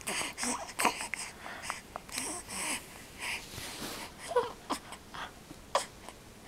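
Newborn baby's quiet coos and breathing noises, with one short pitched coo about four seconds in and a few light clicks.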